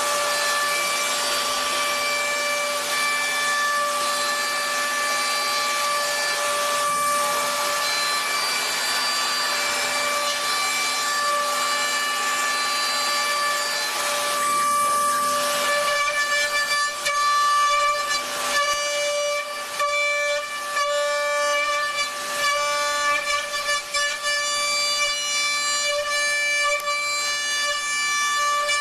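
CNC machine cutting: a steady high whine with several overtones over the hiss of cutting. From about 16 seconds in the sound turns uneven, dipping and catching as the cut comes and goes.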